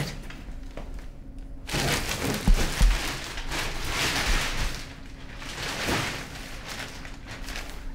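Black plastic garbage bag rustling and crinkling as someone rummages through it, starting about two seconds in, with a couple of soft low thumps shortly after.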